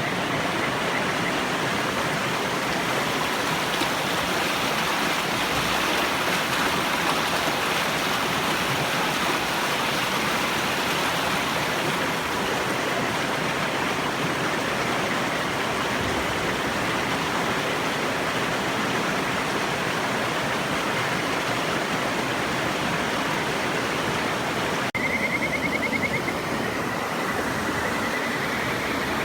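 Steady rush of river water. Near the end a kajika frog sings its high, trilled whistle twice, the second call rising in pitch.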